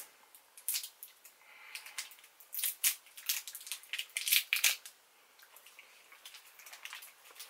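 Crinkly wrappers of small sour hard candies crackling in the fingers as they are unwrapped: a quick run of sharp crackles and clicks over the first few seconds, then only a few faint ticks.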